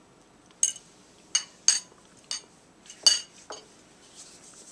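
A metal fork clinking against a dish about six times at uneven intervals while food is picked up. Each is a sharp, bright clink with a brief ring.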